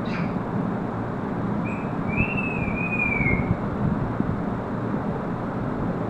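African grey parrot giving one wavering whistle, lasting under two seconds, about two seconds in, over steady background noise.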